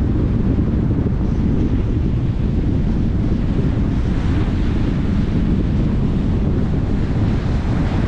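Rough ocean surf breaking and washing up a sandy beach, with strong wind rumbling on the microphone. The hiss of a wave's wash swells about halfway through and again near the end.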